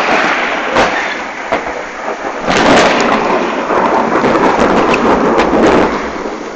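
Heavy rain pouring during a thunderstorm, with sharp cracks of thunder now and then and a loud, deep rumble of thunder breaking in about two and a half seconds in.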